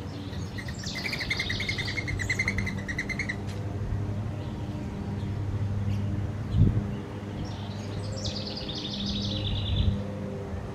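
A songbird singing two rapid trilled phrases, one about half a second in lasting near three seconds, the second near the end, which opens with a falling slide. A steady low hum runs underneath, and a single dull thump comes about midway.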